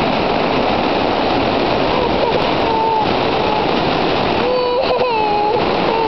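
Waterfall rushing steadily into a pool. A toddler starts crying in long, held wails over it, briefly about halfway through and again, louder, near the end.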